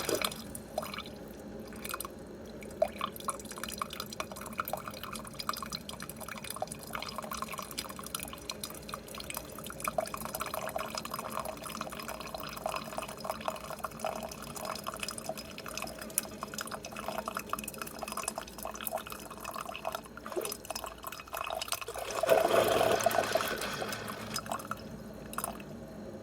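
Instant Solo single-serve pod coffee maker brewing: liquid streaming and dripping into a cup with a crackly patter, and a louder gush about 22 seconds in.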